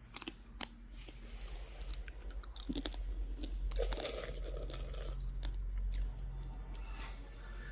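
Someone chewing crunchy potato chips, with irregular sharp crunches and crackles.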